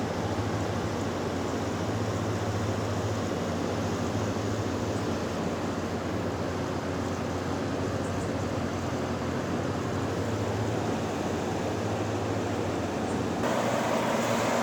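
Window air conditioner running: a steady whoosh of fan air with a low hum underneath. Near the end the sound abruptly gets louder and fuller.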